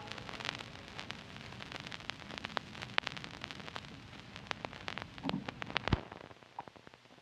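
Vinyl surface noise from the stylus riding the grooves of a 45 rpm single past the end of the music: soft crackle with scattered sharp pops, fading out, and one low thump about six seconds in.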